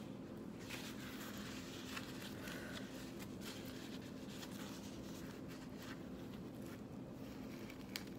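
Faint rustling and crinkling of a thin tissue-paper rag being pulled out and unfolded by hand, with a few small clicks, over a low steady hum.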